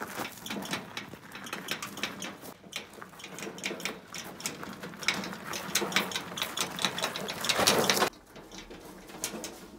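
Quick, irregular clicking and rattling of hard objects being handled. It grows loudest just before it cuts off sharply about eight seconds in, leaving a few faint clicks.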